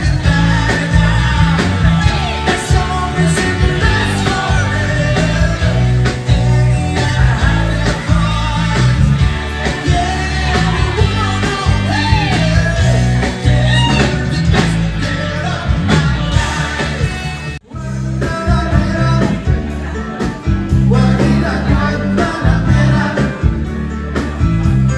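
Live rock-and-roll band playing a song, with a male singer over electric guitar, bass guitar and drums. Near the end the sound cuts off abruptly for a moment, and the music picks up again at another passage.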